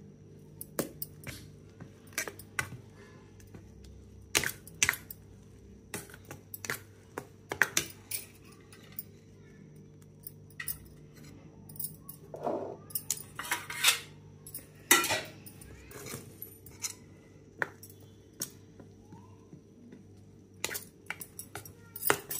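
A steel spoon clinking against a steel bowl while stirring thick idli batter, in irregular sharp clinks, busiest about two-thirds of the way through.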